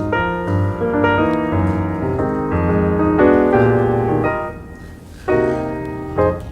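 Piano music, a run of notes and chords, easing off briefly about four and a half seconds in before coming back loudly.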